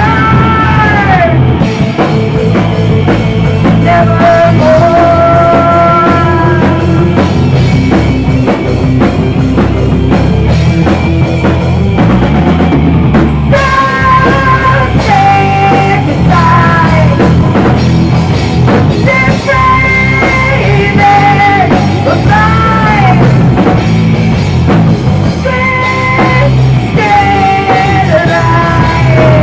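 Live rock band playing loud, with drum kit, distorted guitar and a female lead singer holding long, bending notes, heard raw through a small camera microphone.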